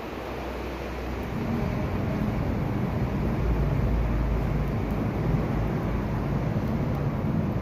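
Street traffic: the low rumble of a passing vehicle's engine and tyres, growing louder about a second and a half in and holding steady.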